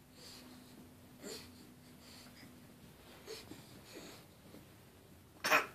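Mostly quiet room with a few faint, brief small sounds, then one short, loud breath close by about five and a half seconds in.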